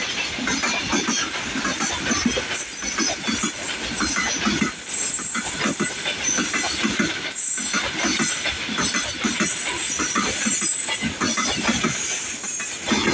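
Freight train hauled by a 2ES4K electric locomotive passing close by, a continuous loud rattle of wagon wheels on the rails.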